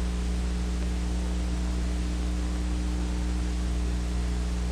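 Steady electrical hum with hiss on an old film soundtrack, between narration lines, with no other sound.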